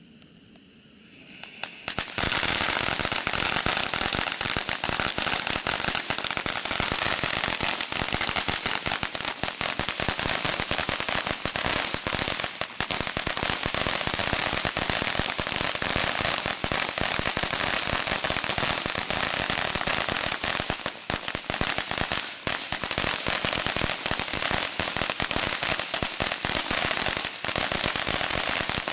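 Consumer firework fountain going off: after a quiet second or two it starts, then sprays with dense, continuous crackling for the rest of the time.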